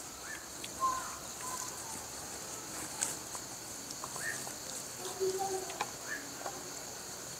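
Insects trilling steadily in a high, even band, with a few faint short sounds scattered through it.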